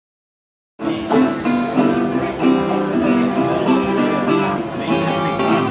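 Street band playing old-time string music on two banjos and a guitar, a busy run of plucked notes that starts abruptly just under a second in.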